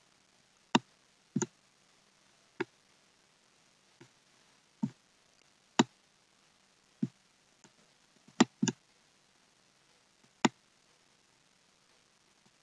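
Computer mouse button clicking: about ten short, sharp clicks at uneven intervals, a couple of them in quick pairs, while zooming in an image viewer.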